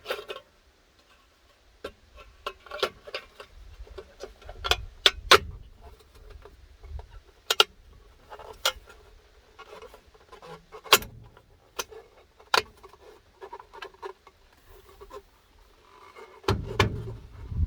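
Metal hubcap clicking and knocking against a steel wheel rim at irregular intervals as it is worked into place, with a low rumble near the end.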